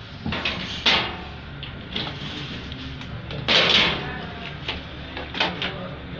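Handling noise from an APC Smart-UPS tower unit being turned and moved on a tiled floor: a few sharp knocks, with a louder scrape-like rustle about three and a half seconds in.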